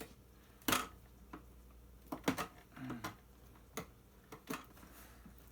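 Scattered light clicks and taps, about nine at irregular intervals, as a knife blade works at cutting and prying an old sticker off a vacuum cleaner part.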